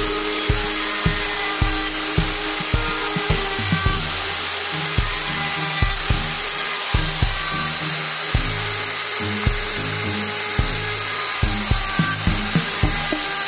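Background music with a steady beat over a router running steadily with a high hiss, its bit cutting the edges of small wooden pieces fed across it by hand. The router is mounted upside down as a makeshift router table.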